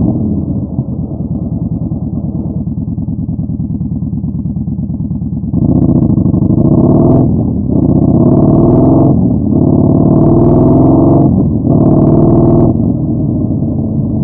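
Yamaha Bolt's air-cooled V-twin through a Vance & Hines Twin Slash staggered exhaust, running at low revs, then about five and a half seconds in accelerating hard. The sound dips briefly three times, as at gear changes, before easing back to low throttle near the end.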